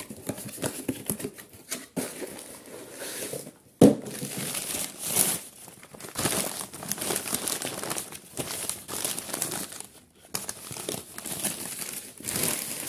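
Packing paper crumpling and rustling as it is pulled out of a parts box, with one sharp knock about four seconds in.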